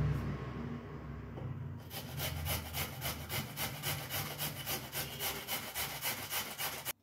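Carrots being grated on the fine side of a stainless-steel box grater: quick, even rasping strokes about three a second, after a softer first couple of seconds, cutting off suddenly near the end.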